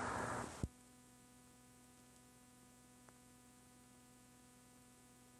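Near silence after a short hiss that ends in a single click a little over half a second in, then only a faint steady electrical hum and hiss on the recording.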